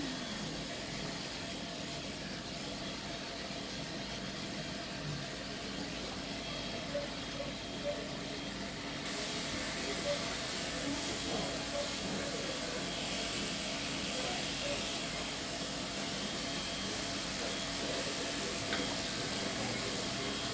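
Electric pet clippers running steadily as they trim a cocker spaniel's coat.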